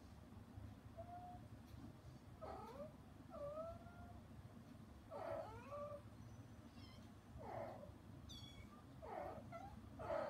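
A mother cat calling to her kittens through a closed door with a series of short meows and chirrups, one every second or two, some rising and some falling in pitch, the loudest near the end.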